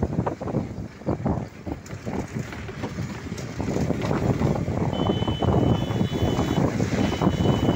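Wind buffeting the microphone at the window of a moving vehicle, over the vehicle's running rumble. A high, steady tone sounds twice in the last three seconds, each time for about a second and a half.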